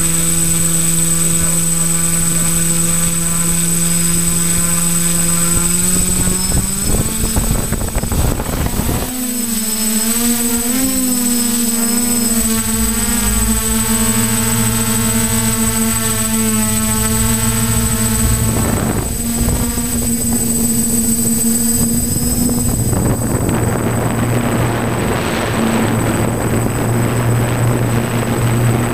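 Multirotor drone's electric motors and propellers whirring, heard from the drone itself. The pitch rises about seven seconds in as it lifts off, wavers as it climbs, then holds steady in flight. A rushing noise builds over the last few seconds.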